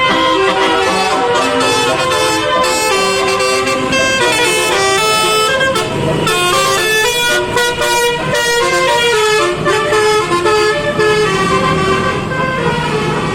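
Two buses' 28-note Basuri telolet horns playing melodies together, quick changing notes overlapping without a break.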